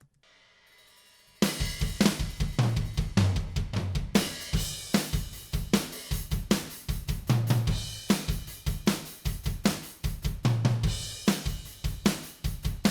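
Multitrack drum kit recording played back, with kick, snare, hi-hat and cymbals in a steady groove and recurring tom hits reinforced by Slate Trigger drum-replacement samples. It starts suddenly about a second and a half in.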